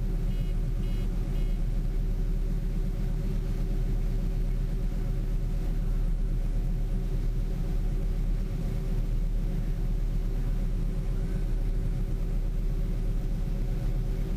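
John Deere 9660 STS combine running steadily while harvesting soybeans: a constant engine and machinery drone with a steady hum. Three short high beeps sound in the first second and a half.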